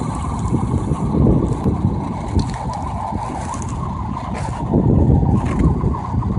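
Wind rumbling on the microphone around a small three-bladed wind turbine spinning in the wind on a truck-mounted test mast. The rumble swells with gusts about a second in and again about five seconds in.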